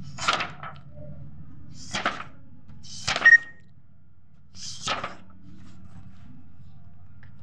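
Sheets of drawing paper being handled and turned over: four short rustles, a second or two apart, over a steady low hum.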